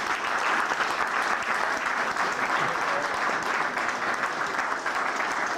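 An audience applauding, many hands clapping together in a dense, steady patter.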